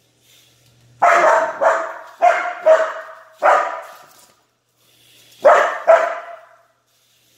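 Aussiedoodle puppy barking in play: five sharp barks in quick succession, a pause, then two more, each echoing in the garage.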